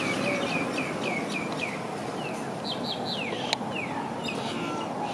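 Small bird chirping over steady outdoor background noise: a quick series of short, falling chirps, a pause, then a second run. A single sharp click about three and a half seconds in.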